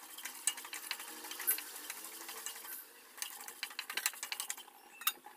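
Chana dal, urad dal and peanuts crackling as they fry in hot oil in a nonstick kadai, stirred with a spatula. The crackles are dense and irregular, ease off briefly about three seconds in, then pick up again, with a sharp pop near the end.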